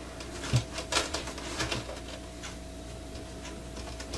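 Handling noise of a stiff leather helmet being laced, with cord drawn through its punched holes: scattered rustles and light clicks, with a dull knock about half a second in and a sharper click at about one second.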